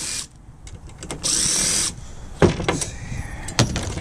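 Metal parts of a disassembled oxygen concentrator being handled on a workbench: a short, high-pitched burst of rasping noise about a second in, then two sharp knocks a little over a second apart.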